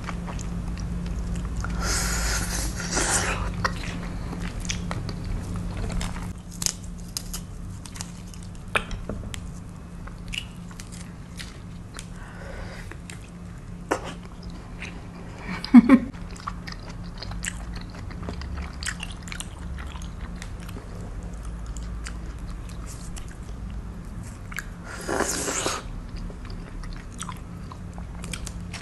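Close-miked mouth sounds of someone biting and chewing juicy tropical fruit flesh, with many small wet clicks and smacks. There are two short noisy bursts, about two seconds in and near the end, and a low steady hum underneath.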